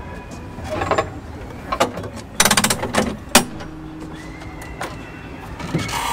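Brass AEG controller on a heritage tram being turned by hand, clicking and ratcheting from notch to notch: single clicks at about one and two seconds in, a quick run of clicks about two and a half seconds in, and two more soon after. A fainter steady hum with a thin whine follows.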